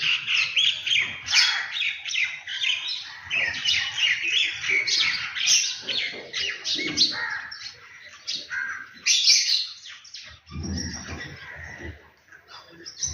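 A group of small birds chirping and twittering continuously, many calls overlapping. A low rumble comes in briefly about ten and a half seconds in.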